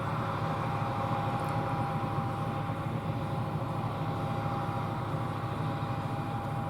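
John Deere combine harvester running steadily while harvesting soybeans: a constant low machine drone with a thin steady whine held above it.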